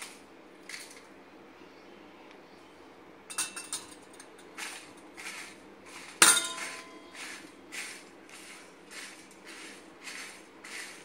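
Dry whole spices and dried red chilies being pushed around a dry iron tawa with a cloth, a scraping stroke about every half-second. There are a few clicks about three seconds in, and a sharp metal clink that rings briefly about six seconds in.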